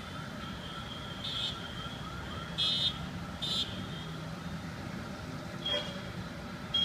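Road traffic with a steady high-pitched tone running under it. Three short vehicle horn blasts come in the first half, and a brief one near the end.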